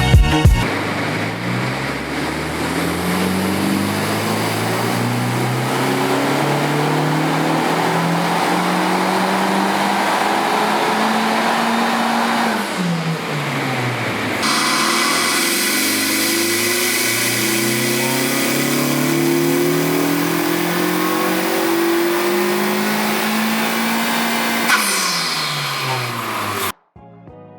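Honda Civic Type R (FK8) 2.0-litre turbocharged four-cylinder, fitted with an Injen cold-air intake, accelerating hard. The engine note climbs steadily for about twelve seconds, dips sharply at a gear change, then climbs again for about ten seconds before the revs fall and the sound cuts off.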